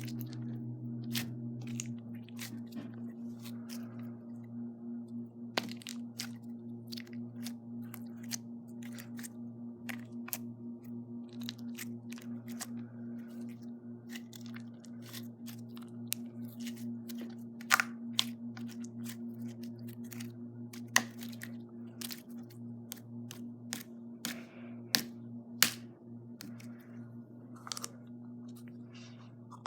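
Glitter slime being squeezed and poked by hand, giving irregular sharp clicks and pops as air pockets burst, a few markedly louder than the rest, over a steady low hum.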